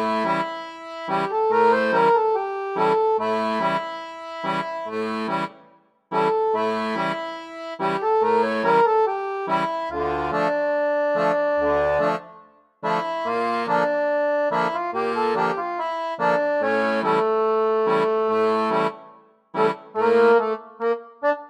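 Background accordion music: a tune played in phrases, broken by short pauses three times.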